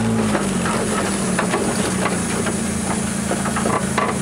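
The SR20DET turbocharged four-cylinder engine of a Toyota AE86 Trueno idling steadily, heard from inside the cabin. The revs rise and fall slightly at the start, and scattered light clicks and rattles sit over a steady hiss.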